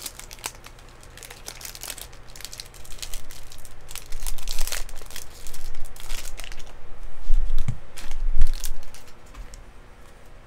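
Foil wrapper of a Topps Chrome trading-card pack crinkling and tearing as it is ripped open by hand. The crinkling is loudest in the middle, with two dull bumps against the table about two-thirds of the way through.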